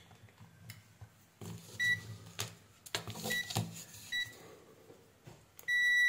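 ANENG Q1 digital multimeter beeping as its buttons are pressed to set continuity mode: three short beeps spaced about a second apart, then a longer beep near the end, with faint clicks of handling in between.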